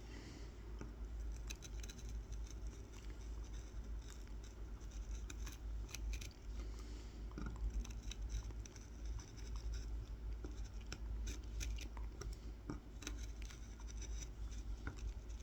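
Kolrosing knife scoring short lines into a wooden honey dipper: a steady run of small, irregular scratches and clicks as the blade cuts into the grain.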